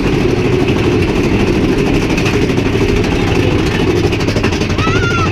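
Big Thunder Mountain Railroad mine-train coaster rolling along its track, a steady loud rumble heard from an open car. Near the end there is a brief rising-and-falling high squeal.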